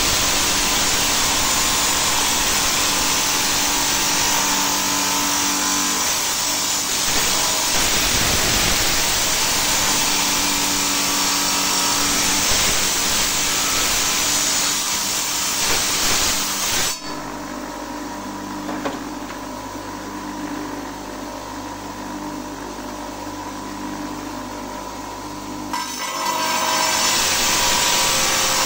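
A small stone-cutting saw runs and cuts through agate, a loud steady grinding whine. A little over halfway through it suddenly drops to a quieter, duller hum for several seconds, then comes back at full loudness.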